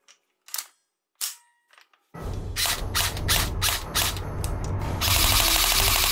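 A few short plastic clicks as a toy M4 airsoft rifle is handled. About two seconds in, loud music with a heavy steady beat and sharp mechanical-sounding hits starts.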